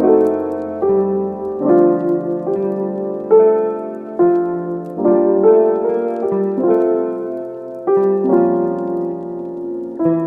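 Background piano music, a slow melody over sustained chords.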